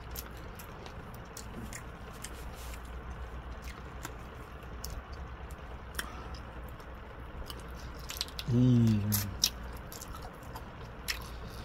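Close-up mouth sounds of someone chewing and biting a fried chicken wing: scattered wet smacks and clicks over a low steady hum. A short hummed "mmm" comes about eight and a half seconds in.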